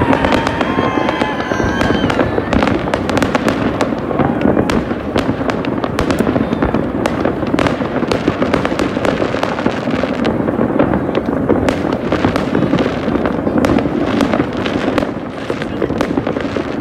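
Fireworks going off all over a city: a continuous din of many overlapping bangs and crackles, with a few whistling rockets in the first couple of seconds.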